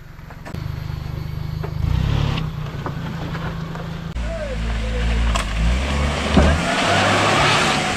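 Maruti Omni van's small three-cylinder petrol engine revving as the van tries to pull a tyre out of deep mud. The engine gets louder about four seconds in, and a rushing noise swells toward the end.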